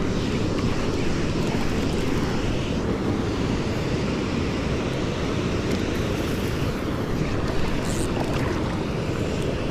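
Steady rush of fast-flowing river water, with wind buffeting the microphone.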